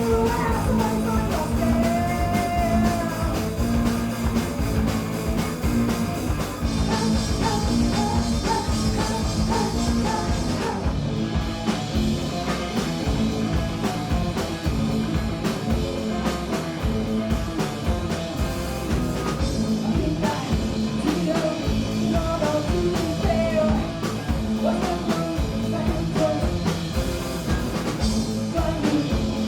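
Punk rock band playing live, with distorted electric guitar, bass and drums, and a singer's vocal line.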